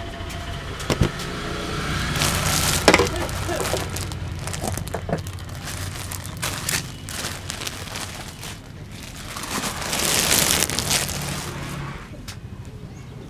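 Head massage by hand: palms rubbing and brushing through hair with a rustling sound that swells twice, and a couple of sharp slaps about one and three seconds in, over a steady hum of traffic.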